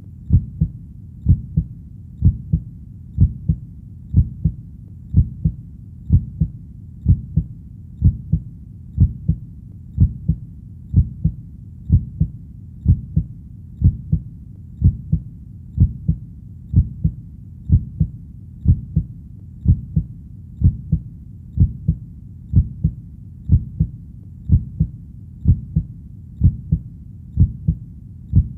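Heartbeat sound: a steady 'lub-dub' double beat, a louder thud followed closely by a softer one, repeating at a little over one beat a second (about 60 a minute). The beats are low and dull, over a faint low hum between them.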